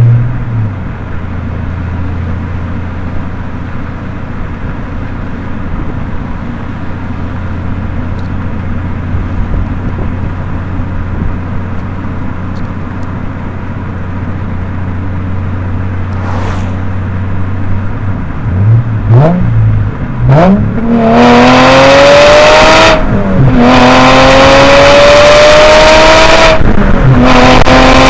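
Subaru Legacy Spec.B 3.0R's EZ30R flat-six with the muffler deleted, running steadily at low revs, then revving briefly and, about two-thirds in, pulling hard with its pitch climbing and dropping back at two gear shifts. Heavy wind noise over the outside-mounted microphone during the pull.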